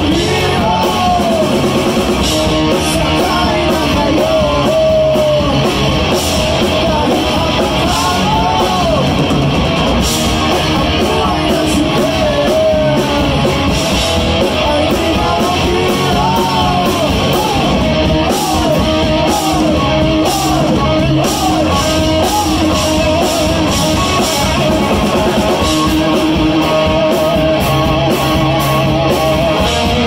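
Live rock band playing electric guitars, bass guitar and drums with vocals, a lead line bending up and down over the band, recorded on a phone in the audience.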